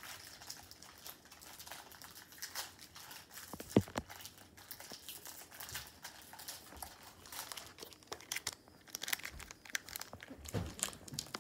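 Foil wrapper of a Pokémon card booster pack crinkling and crackling in the hands, in fits and starts, as someone struggles to tear it open. There is one brief sharp knock about four seconds in.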